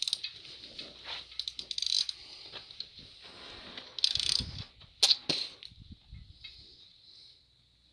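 Hand socket ratchet clicking in several short runs as bolts are tightened on an aluminium adapter plate against an engine block, with some metal clinks of the tool on the bolts.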